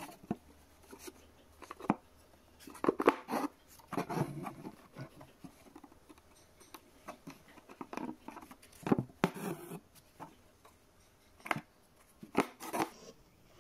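Needle and embroidery floss drawn through cotton fabric held taut in an embroidery hoop: irregular scratchy rasps and light taps, with a few louder pulls of the thread.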